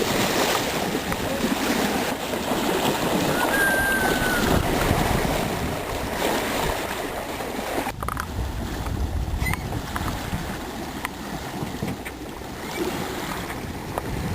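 Wind and water noise aboard a sailboat under way: water washing along the hull and wind buffeting the microphone, with a sudden change in the noise about eight seconds in.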